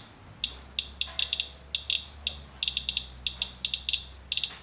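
Radalert Inspector Geiger counter chirping at random, irregular intervals, a few counts a second and sometimes in quick clusters, as it counts radiation from a rainwater wipe sample. The fairly slow count rate sounds like a less radioactive sample.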